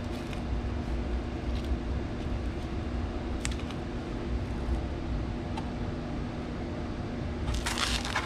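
Small clicks of washers and bolts being handled while a car's rear diffuser is fastened on, over a steady low hum. A short scraping rustle comes near the end.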